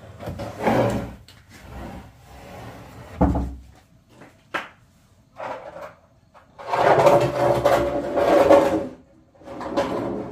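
Wooden planks being handled: a couple of knocks, then longer stretches of wood scraping and rubbing, from about two-thirds of the way in.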